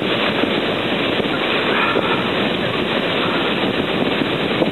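Heavy rain pelting a vehicle's roof and windscreen, heard from inside as a loud, steady, dense crackle mixed with wind.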